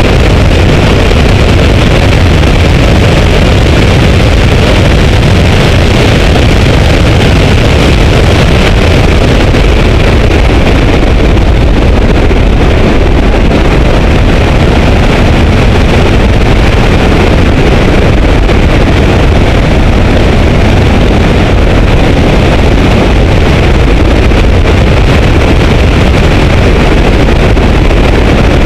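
Porsche 944 at speed on a racetrack, heard from a camera mounted outside the driver's window: a loud, steady rush of wind buffeting the microphone over the engine and tyre noise, with no clear engine note standing out.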